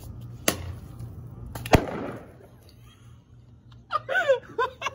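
Dry ice bottle bomb going off: a sharp crack about half a second in, then a much louder bang as the bottle bursts, with a short noisy tail. Excited voices follow near the end.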